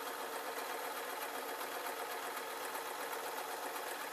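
Domestic sewing machine running steadily in forward stitch, stitching a folded fabric waistband.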